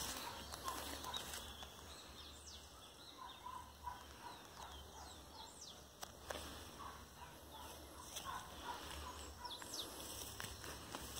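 Birds calling: many short, high chirps that slide downward, and two runs of quick repeated lower notes, one a few seconds in and one past the middle.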